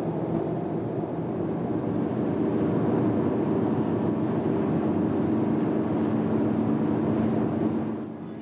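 A car driving at motorway speed: a steady engine hum and road noise that fade out near the end.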